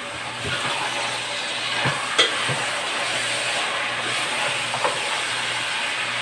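Ground pork and bacon sizzling steadily as they fry in a stainless steel pot, stirred with a spoon that scrapes the pot, with a sharp knock about two seconds in.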